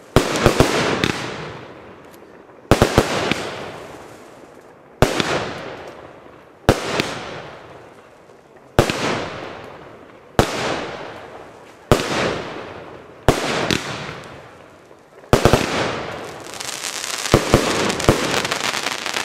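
Fireworks going off one after another, a sharp bang about every one and a half to two seconds, each trailing off into a fading crackle. Near the end several bangs come close together into a longer, denser stretch of crackling.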